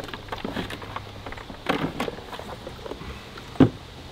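Plastic Tupperware containers of frozen water knocking and shifting inside a roto-molded cooler as one is lifted out, with light scattered clatter and one sharper knock near the end.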